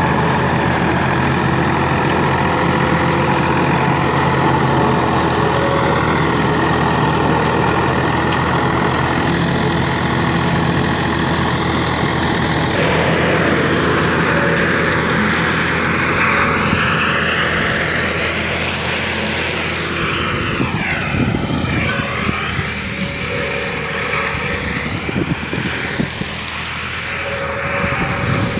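Farmtrac 60 tractor's diesel engine running steadily under load as the Maschio mulcher behind it shreds straw stubble. About 13 seconds in the sound changes abruptly and becomes more uneven for the rest of the stretch.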